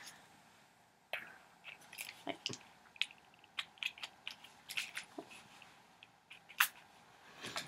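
Perfume bottles and caps being handled: scattered light clicks and taps, with one louder, sharper burst near the end.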